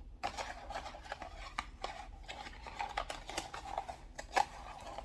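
Rustling and irregular small clicks and taps of a warm wax kit's contents (wax strips and wooden applicator sticks) being handled up close.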